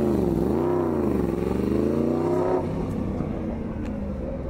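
Yamaha YZF-R1M's crossplane inline-four engine revving as the bike rides off, its pitch dipping and climbing twice, then holding steadier and fading away.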